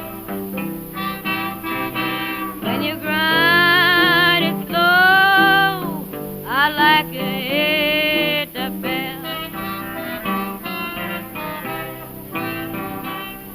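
Blues song: a woman sings long, wavering held notes over a steady instrumental accompaniment of short repeated notes.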